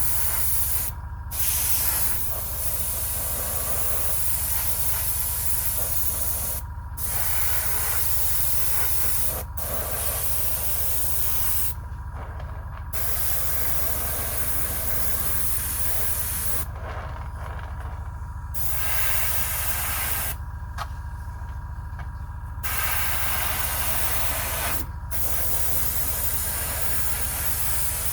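Iwata Eclipse airbrush hissing as it sprays a water-based weathering wash. It goes in long passes broken by several short pauses where the trigger is let off, over a steady low hum.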